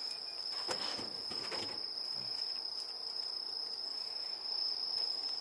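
Singing insects: a continuous, steady, high-pitched trill that never breaks, with a few faint clicks in the first two seconds.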